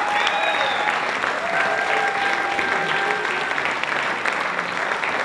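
An audience and choir applauding, a steady patter of many hands clapping, with a few voices calling out over it in the first few seconds.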